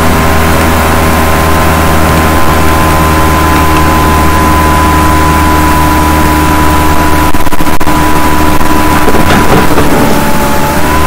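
Loud, steady mechanical drone with several pitched tones, like a running motor, dipping slightly in pitch near the end.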